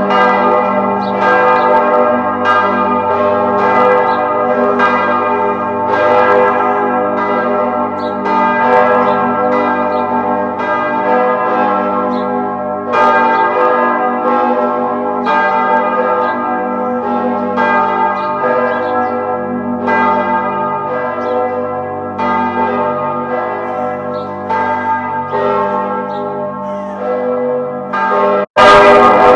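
A peal of church bells ringing, about two strikes a second, each bell's ring overlapping the next. Near the end the sound cuts out for a moment and comes back louder.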